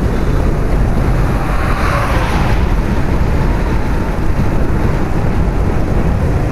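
Steady wind rumble on the microphone with tyre and road noise from a velomobile riding along a highway. A brief hiss swells and fades about two seconds in.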